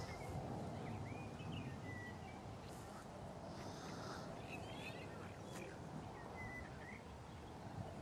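Countryside ambience: small birds calling with short chirps and whistles over a steady low background noise.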